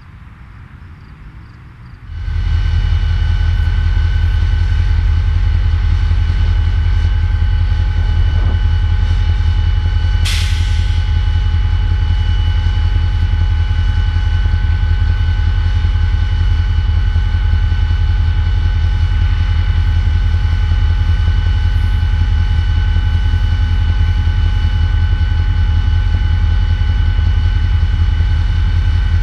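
Diesel-electric freight locomotive engine running steadily: a loud, unchanging low drone with a steady whine, which starts suddenly about two seconds in. A single sharp click comes about ten seconds in.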